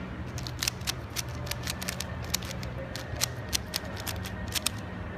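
Plastic Rubik's Cube faces being turned by hand, clicking irregularly a few times a second.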